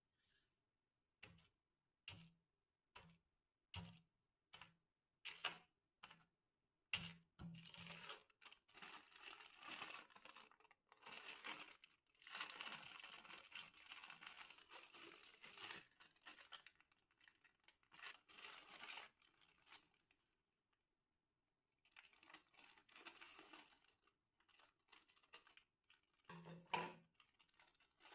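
Plastic snack packets crinkling and tearing as they are opened: a string of short separate crackles, then continuous rustling that stops briefly about two-thirds through and starts again.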